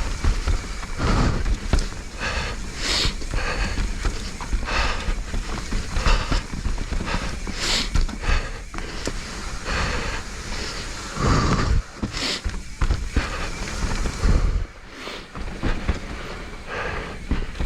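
Mountain bike descending a rough dirt trail: constant tyre and wind rumble broken by many sharp knocks and rattles over roots and rocks, with the rider's heavy breathing.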